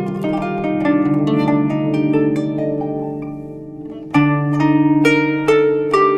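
Kanun, the Turkish plucked zither, playing a melody of plucked notes that ring on with bright overtones. The playing fades around three seconds in, then louder plucked notes come in just after four seconds.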